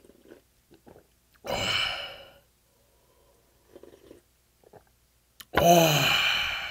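A man drinking broth straight from a large stainless steel bowl: a loud slurp about a second and a half in, then a few soft gulps. Near the end comes a loud, drawn-out 'ahh' with a falling pitch as he lowers the bowl.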